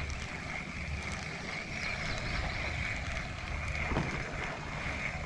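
Wind buffeting the microphone on a drifting kayak, over a faint steady background of moving water, with a soft knock about four seconds in.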